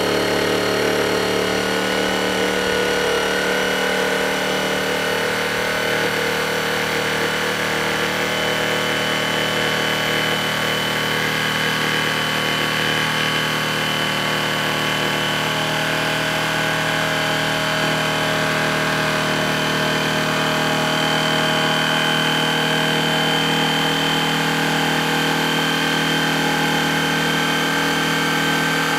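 Corded electric jigsaw running steadily as its blade cuts straight through a thick wooden board: a continuous motor whine with the blade's rapid rat-a-tat chatter.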